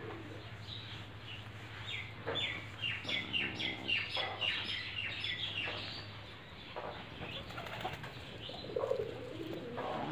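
Birds calling: a quick run of short high chirps about two to five seconds in, and lower cooing calls near the end.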